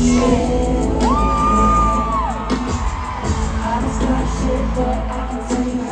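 Live stadium concert: a female pop singer singing over an amplified band, recorded from the stands with crowd voices mixed in. A high note is held for just over a second about a second in.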